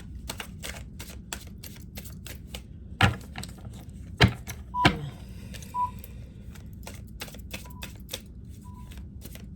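A deck of tarot cards being shuffled by hand: a dense run of quick card clicks, with a few louder slaps about three to five seconds in. Four short, faint high beeps sound in the second half.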